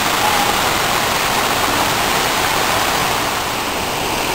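Havasu Falls pouring into its plunge pool: a steady rush of falling water, a little quieter about three seconds in.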